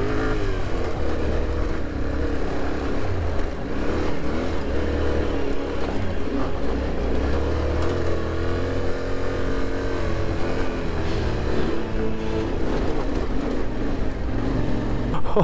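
Yamaha Ténéré 700's parallel-twin engine pulling uphill on a stony off-road track, its pitch rising and falling with the throttle.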